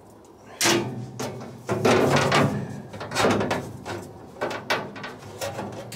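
A drilled aluminium foot plate being set down on a car's bare steel floor pan, clattering and scraping as it is slid into place, then a few lighter knocks as it is nudged straight.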